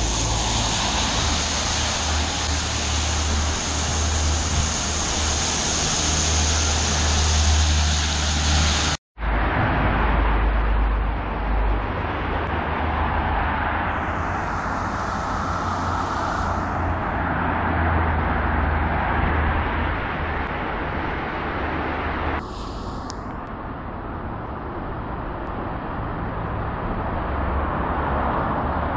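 Steady hiss of heavy rain and traffic on a wet road, with a low rumble underneath. A car's tyres swish past on the wet tarmac about halfway through. The sound cuts out abruptly for a moment about a third of the way in and changes suddenly again later on.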